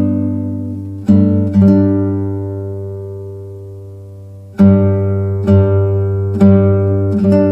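Background music: acoustic guitar chords strummed and left to ring. One chord fades for about three seconds before the strumming picks up again about halfway through.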